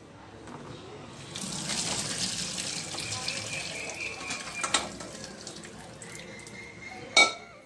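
Hot blanching water and cauliflower florets poured from a pan into a plastic strainer over a steel sink, water splashing into the sink for about three seconds. The flow then thins to a lighter running with a faint steady tone, and a single sharp knock comes near the end.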